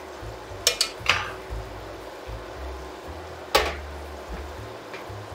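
A cooking utensil knocks against a nonstick frying pan of stirred steak cubes and onions: a quick cluster of three knocks about a second in, a louder single knock midway, and a fainter one near the end. Under the knocks is a faint steady sizzle of the meat frying in soy sauce on high heat.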